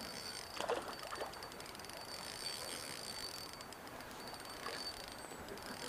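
Spinning reel being cranked in quick, soft clicks while a hooked trout is played on the line, over the steady hiss of the stream.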